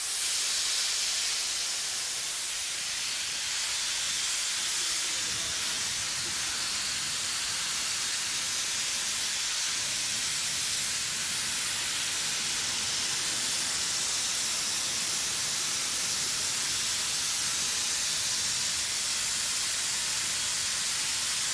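Steady rushing hiss of blown air from a stage wind machine, swelling up at the start and then holding level.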